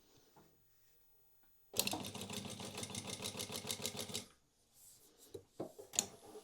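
Prosew PS-1903SX industrial walking foot sewing machine sewing out a programmed pattern at 2 mm stitch length, a rapid, even run of stitches for about two and a half seconds that then stops. A few mechanical clicks follow, the sharpest near the end.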